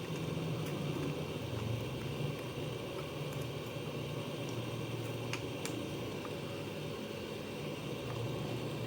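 Hot air rework gun blowing steadily, its blower fan giving an even rush of air while it heats a component on a circuit board. A couple of faint ticks about halfway.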